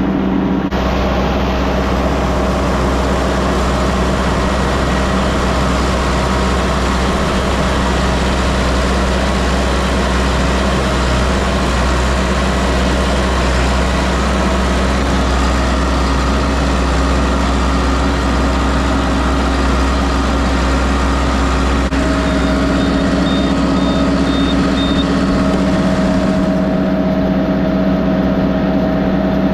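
Vehicle engine running steadily with a constant low hum. A row of short high beeps, about two a second, comes about two-thirds of the way through.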